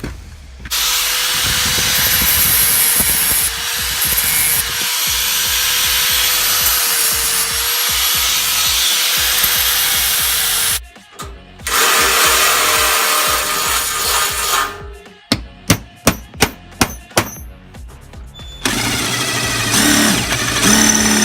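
Electric drill boring through sheet metal in three long runs, its motor whine wavering under load. Between the second and third runs comes a stretch of sharp clicks and knocks.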